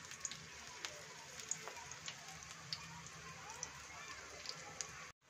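Spinach leaves in gram-flour batter frying in hot oil in a pan: a faint, steady sizzle with scattered small pops and crackles, cutting out for a moment near the end.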